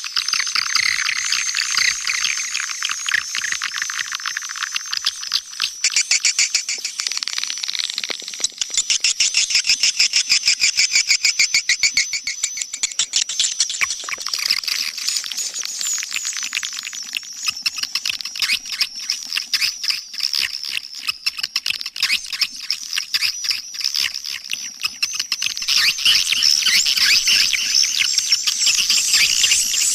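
Swiftlet lure call: a recording of many swiftlets twittering in a dense, fast stream of high-pitched chirps and clicks, the kind played to draw swiftlets into a nesting house. It grows louder near the end.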